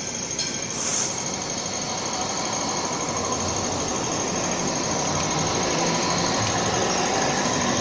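Hong Kong Light Rail vehicle passing close on street-level track: a steady rumble of wheels on rails and running gear that builds slowly as it goes by, with a thin high squeal over it.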